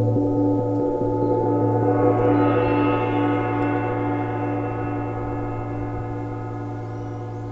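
Large gong hung in a tree, played with two soft-headed mallets: a sustained wash of many overlapping ringing tones. The higher tones swell about two seconds in, then the whole sound slowly dies away.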